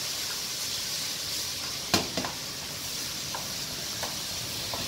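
Sliced vegetables sizzling in a hot non-stick frying pan while being stirred with a wooden spatula, a steady frying hiss. One sharp knock about two seconds in, with a few lighter taps of the spatula on the pan after it.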